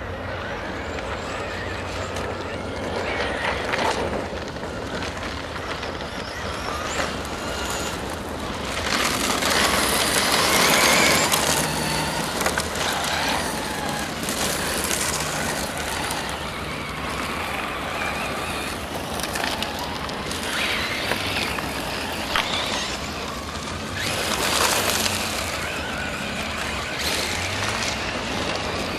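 Several brushless electric RC cars racing on loose gravel: tyres scrabbling and spraying gravel along with motor whine, swelling twice as cars pass close.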